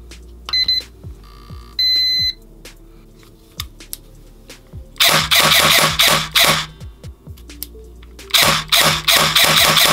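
Programming box for an airsoft AEG's electronic trigger giving two short beeps, with a brief motor-vibration buzz between them, as a setting is confirmed. Then the Secutor Rapax M1 electric gearbox cycles in two quick strings of shots, about five a second, with the rifle electronically locked to semi-auto.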